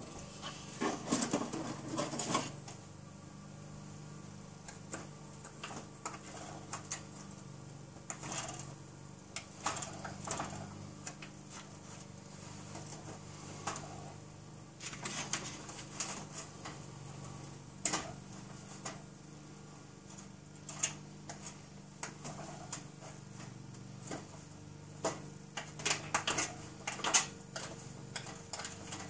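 Irregular clatter and knocks from a homemade train of a wagon, a loaded cart, a covered trailer and a stroller roped together, rattling as it is handled and pulled along the street, over a steady low hum. The clatter comes in scattered bursts, the loudest and densest near the end.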